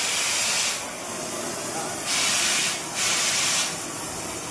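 Oxy-fuel gas cutting torch hissing steadily, with louder rushing stretches about every second and a half as the cutting oxygen jet is turned on and off.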